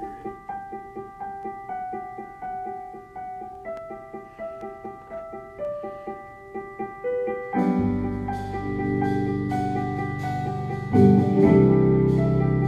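Small jazz combo playing: a keyboard alone plays a repeated figure of evenly spaced notes, about three a second, its line stepping down. About eight seconds in, the bass and drum kit come in with cymbal strokes and the music gets louder, swelling again near the end.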